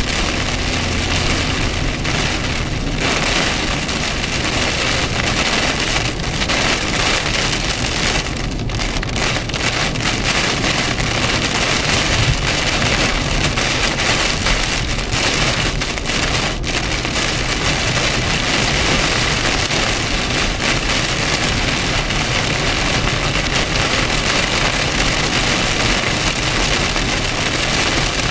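Heavy thunderstorm downpour hitting a car's roof and windshield, heard from inside the cabin: a loud, dense, steady hiss of rain.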